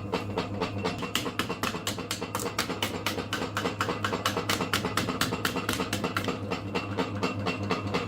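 Background music with a quick, even percussive beat, about five strikes a second, over a steady low tone.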